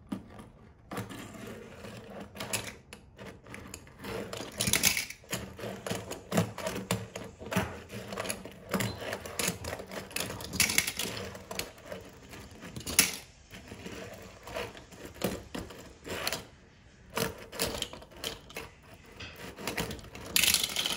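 Metal diecast toy cars clattering against one another as the pile is shoved along, with many quick irregular clicks and knocks and a few louder clusters. Some cars tip into a plastic funnel.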